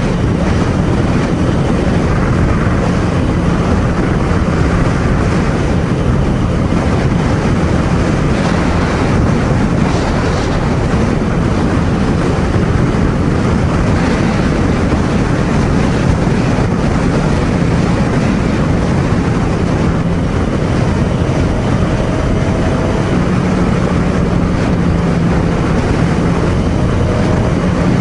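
Ducati Scrambler Sixty2's air-cooled L-twin engine running at a steady cruise, mixed with heavy wind rush on the helmet microphone and road noise. The engine is new and being run in.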